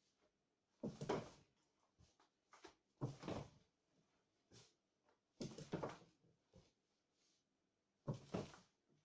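Wooden arm of a kakiya (kakete-biki) karate training device knocking and clattering as it is struck and worked, in four bursts about two and a half seconds apart.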